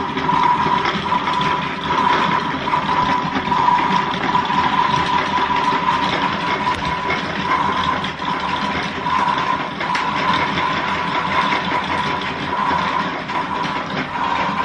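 Casdon toy washing machine running a cycle: its small electric motor whirring steadily, with a constant high whine over it.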